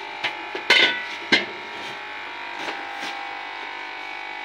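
A few sharp knocks and scrapes of a wooden spoon against a metal wok, the loudest about a second in, over a steady hum.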